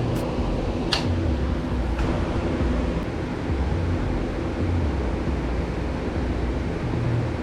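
2018 Ducati Multistrada 950's 937 cc L-twin engine idling steadily, with a couple of faint clicks about one and two seconds in.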